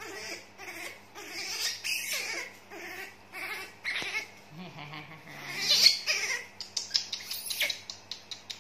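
Baby monkey squealing and crying in repeated short, high-pitched calls, loudest a little before six seconds in. A run of quick sharp clicks follows near the end.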